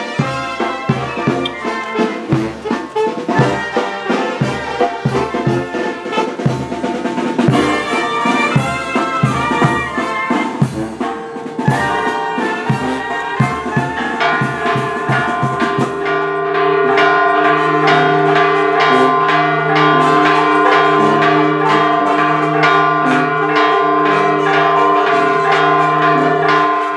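A village brass band of trumpets, trombones and tuba playing over a drum beat. About sixteen seconds in, the drumming stops and church bells ring on steadily.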